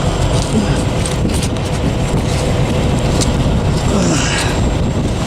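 Steady low rumble of a truck engine idling, with wind on the microphone and a few sharp metallic clinks from tire chains being tightened.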